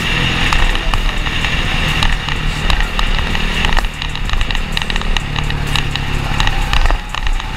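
Dirt bike engine running at road speed, with wind rushing over the microphone and frequent small clicks and buffets.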